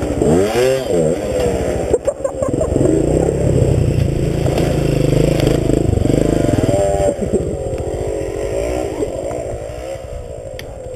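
Off-road motorcycle engines running, blipped up in quick revs in the first second and again about seven seconds in, with a loud steady run between. The engine sound fades lower over the last few seconds.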